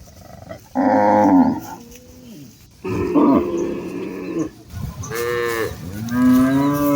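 Several cattle mooing in turn: four or five loud calls, some overlapping, the last a long moo that rises and then falls in pitch near the end.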